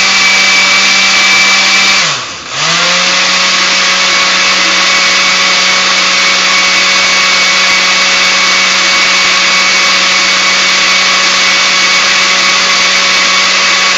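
A countertop blender with a plastic jar runs at speed, mixing cream cheese and sugar into milk and gelatin, with a steady whine. About two seconds in, the motor's pitch and loudness drop briefly, then come back up to full speed.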